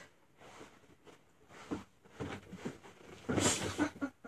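Rummaging among craft supplies: scattered faint knocks and handling noises, with one louder rustle about three and a half seconds in.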